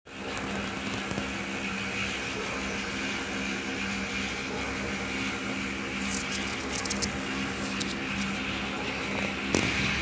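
Steady mechanical hum over a background of noise. A few faint clicks come about six to seven seconds in, and a sharper click comes near the end.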